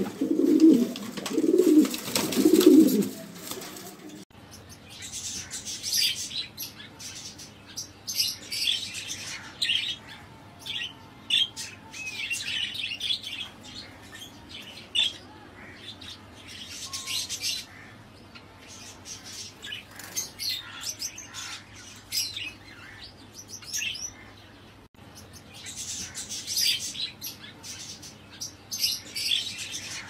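Pigeons cooing in low, pulsing calls for the first few seconds; then the sound changes abruptly to small birds chirping and twittering in repeated clusters of high calls.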